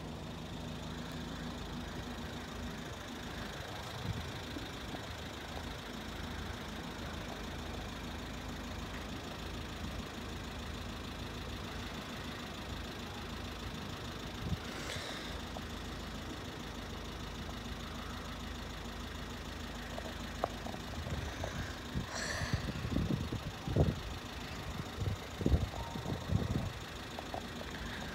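Low steady rumble of road vehicles idling while held at the closed crossing, with a run of louder low thumps in the last several seconds.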